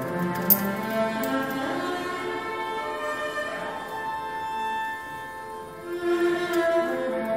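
Youth orchestra playing a slow melody, with bowed strings (violins and cellos) holding long notes. A short sharp click about half a second in.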